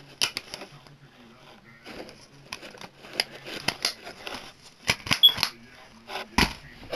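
Plastic Blu-ray/DVD case and its discs being handled: a scattered series of plastic clicks and taps, with one loud knock near the end.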